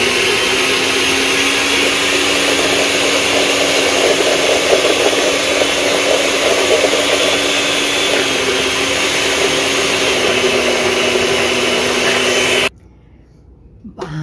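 Oster countertop blender running at speed, blending fresh corn kernels and eggs into a batter: a loud, steady motor whine with a hiss of churning liquid. The pitch drops slightly a little past halfway, and the motor shuts off suddenly near the end.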